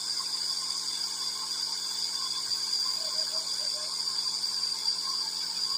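Nebuliser running steadily: a constant high whine over a hiss.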